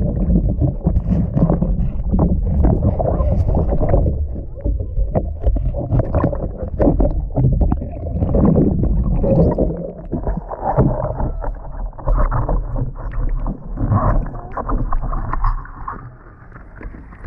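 Pool water churned by kicking legs and hands, heard underwater: a dull, muffled rush of bubbles and sloshing with many small knocks. It drops off and goes quieter near the end.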